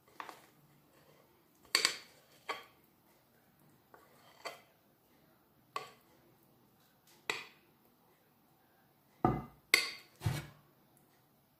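A utensil and glass mixing bowls clinking and knocking as batter is scraped from one bowl into another. The short knocks come every second or two, with three louder knocks close together near the end.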